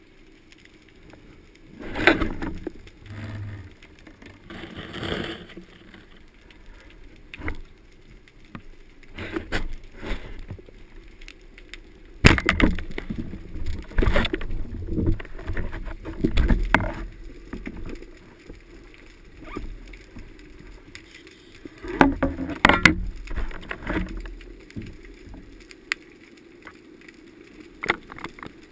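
Underwater sound through a diving camera's housing: a steady low hum, broken several times by sudden loud knocks and washes of noise.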